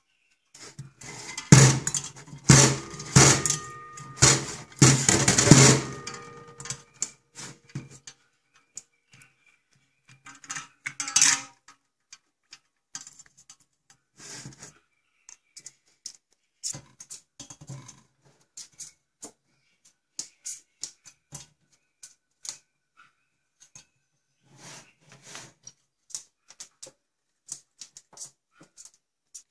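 African grey parrot rattling a stainless-steel saucepan in a steel kitchen sink: a run of loud metallic clanks and rattles with a ringing note for the first few seconds, then scattered light taps and clicks.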